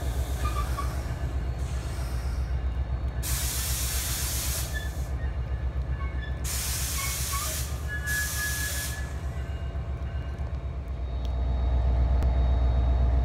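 NJ Transit PL42AC diesel locomotive running with a steady low rumble as it hauls a Comet coach train. Two loud bursts of air hiss come from the train about 3 and 6.5 seconds in. The engine rumble grows louder near the end.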